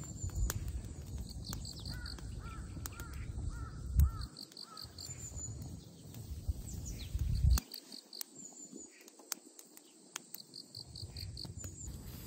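Outdoor ambience: insects chirping in short high groups about every two seconds, and a bird calling several times early on. A low rumble with two thumps runs under it and stops about two-thirds of the way through.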